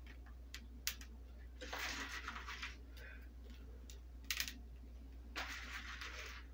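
Hand-sprinkled candy sprinkles scattering over chocolate-coated pretzel rods on a parchment-lined sheet pan. There are two brief bursts of light rustling and pattering, about two and five and a half seconds in, and a few small sharp clicks. A low steady hum runs underneath.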